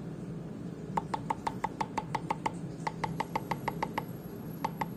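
A cleaver finely chopping lime leaves on a wooden cutting board: quick runs of blade strikes against the wood, about six a second, starting about a second in, with short pauses between runs.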